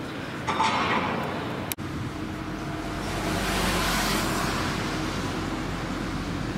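Steady outdoor traffic noise, with a vehicle passing close by: a rushing sound that swells in the middle and fades away again.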